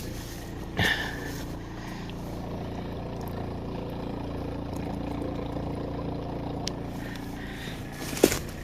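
Small electric sap-line vacuum pump running steadily with an even hum, working normally and pulling vacuum on the maple tubing. A short sharp sound cuts in about a second in.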